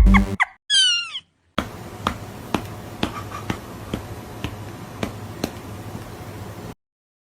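A cat meowing once, a short high cry that falls in pitch, about a second in. Then a quieter stretch of steady background noise with scattered light clicks, which cuts off suddenly near the end.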